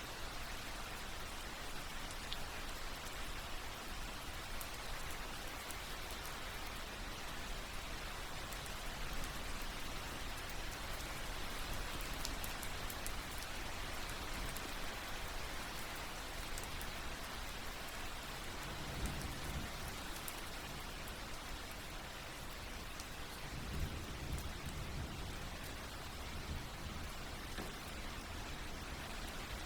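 Steady rain falling, an even patter of drops on surfaces, with two brief low rumbles near the end.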